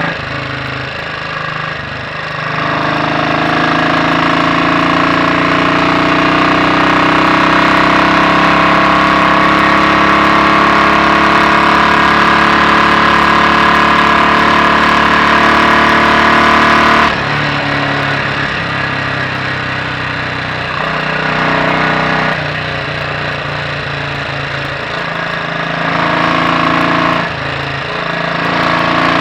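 Royal Enfield Bullet 500 single-cylinder engine, its inlet cam retarded by one tooth, pulling steadily under load with its pitch slowly rising. About two-thirds of the way through the throttle shuts off suddenly, and the engine runs on at lower, uneven revs with brief rises and falls.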